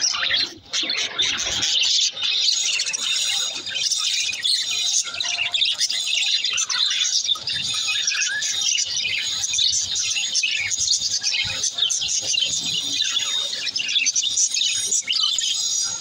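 A flock of budgerigars chattering and warbling, a dense, unbroken mass of high chirps and squeaks from many birds at once.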